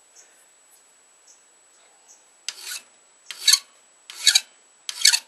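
Hand file rasping across a hand-forged steel knife blade, slow separate push strokes. After a quiet start, four strokes come about every three-quarters of a second.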